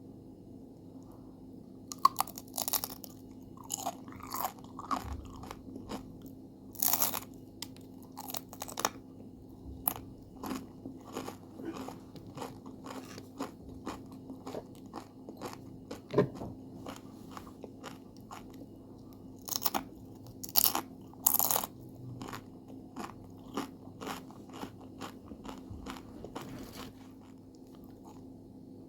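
Crispy homemade potato chips being bitten and chewed: a run of crunches with a few much louder bites, starting about two seconds in and dying away near the end. A faint steady hum runs underneath.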